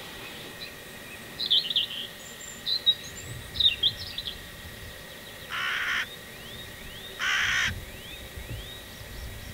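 Two harsh caws from a hooded crow, each about half a second long and about a second and a half apart, in the second half. Before them comes a run of short, high bird chirps, the loudest sounds.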